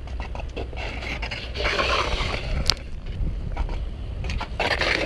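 BMX bike on a granite ledge, its metal scraping on the stone in two rasping stretches, with a single sharp knock in between. Steady wind rumble on the microphone underneath.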